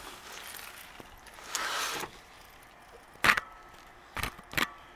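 Handling noise from a handheld camera: a short rustle about a second and a half in, then a few sharp clicks, the loudest about halfway through and two more close together near the end.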